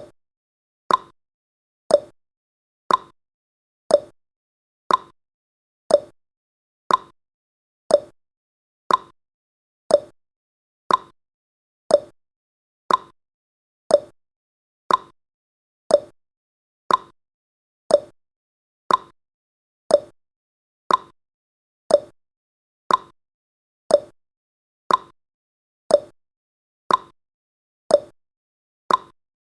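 Countdown timer's tick sound effect: one short, sharp click every second, steady and evenly spaced.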